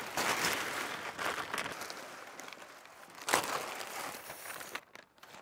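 A plastic tarp being unfolded and handled, crinkling and rustling in irregular bursts, with a sharper rustle a little past three seconds in.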